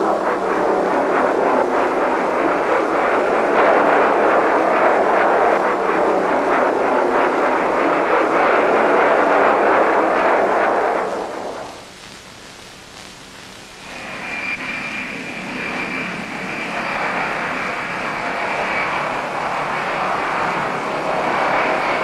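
Jet aircraft engines: a loud steady rush that fades out about 11 seconds in, then after a short lull comes back with a steady high whine over the rush.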